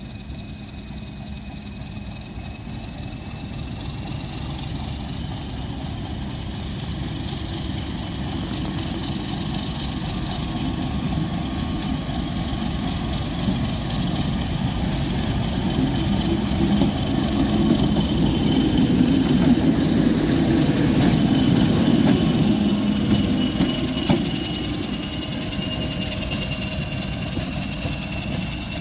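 Class 31 diesel locomotive's English Electric V12 engine running as the locomotive moves off and passes with its coaches, the engine sound growing louder to a peak about two-thirds of the way through, then easing off as it draws away.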